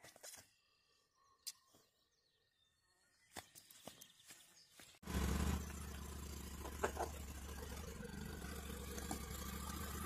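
Near silence with a few faint clicks, then, about halfway through, a Polaris Ranger utility vehicle's engine idling steadily with a low hum.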